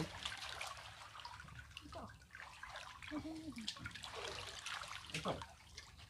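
Water trickling and splashing as a dripping hand net is lifted out of waist-deep muddy water and people wade through it.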